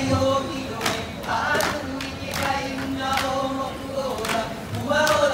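Hula chant sung by a group of voices together, punctuated by sharp beats on ipu gourd drums about once a second.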